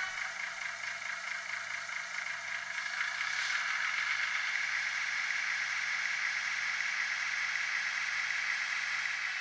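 HO-scale Moyse 32 shunter model running on its DCC sound decoder: a diesel engine sound from the model's small speaker, with a steady hiss and a faint low pulse. It grows louder about three seconds in.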